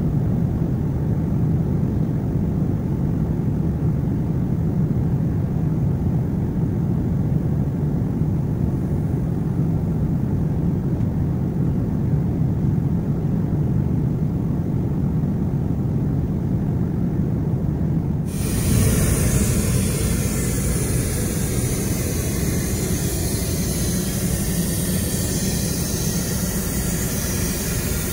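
Steady low drone of a Boeing 767-400ER airliner's engines and airflow. About eighteen seconds in it changes abruptly to a brighter, hissier rushing sound.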